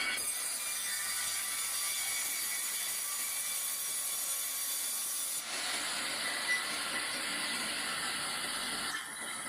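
Sawmill saw cutting through a log: a steady, high-pitched whine over a hiss. The sound shifts abruptly about five and a half seconds in, and dips briefly near the end.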